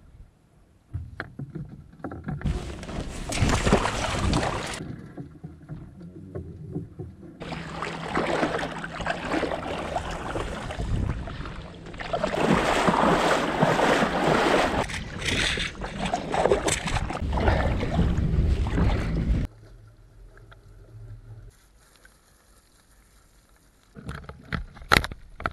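Water noise along a sailing dinghy's hull with wind on the microphone, in several short clips that cut abruptly from one to the next. A few sharp knocks near the end.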